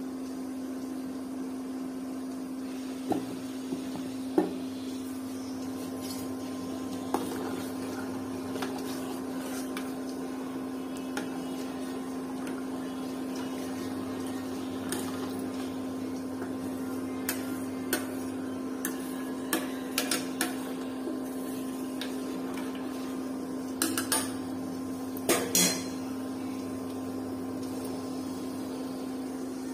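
Steady low electrical hum with scattered sharp clinks of utensils against a steel pan, clustered a few seconds in, around the middle, and near the end.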